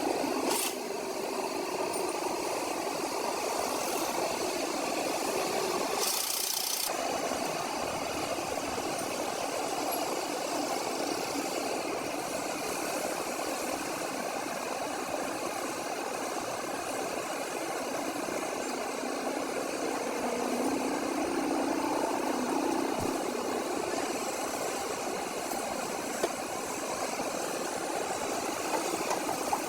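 A motor running steadily at an even level.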